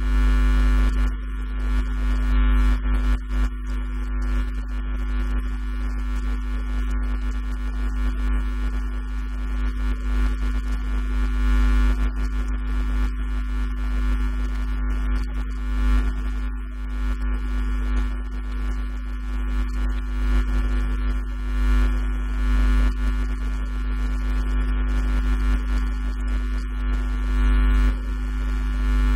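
Loud, steady electrical mains hum: a deep drone with several steady higher tones stacked above it, running unbroken.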